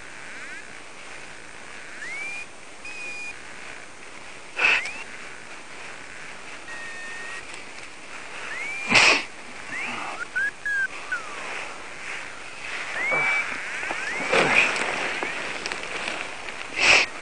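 Birds give short whistled chirps that rise and level off, over a steady high hiss. Four loud, short bursts of noise break in, the loudest about halfway through.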